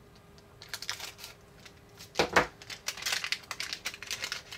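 Crinkling and crackling of a small paper powder packet being handled and opened: a run of crisp crackles with one louder crunch about two seconds in.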